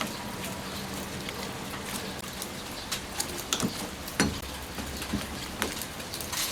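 Rain falling steadily, with scattered light taps and clicks through it.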